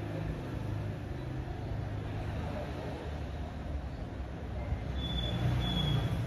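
Steady low rumbling background noise, with a brief thin high tone near the end.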